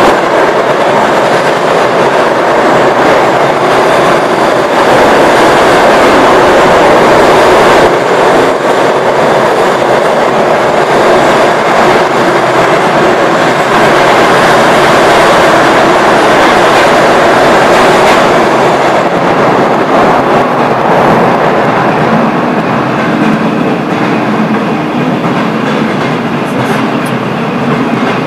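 Interior running noise of a Moscow-2024 (Metrowagonmash 81-775) metro train travelling at speed through a tunnel: a loud, steady rumble and rush of wheels on rail with some clickety-clack. It eases slightly in the last several seconds.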